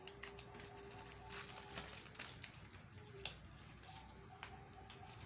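Thin plastic packaging crinkling and tearing in a series of short crackles as a pop-it toy's bag is handled and cut open with scissors, over faint steady background tones.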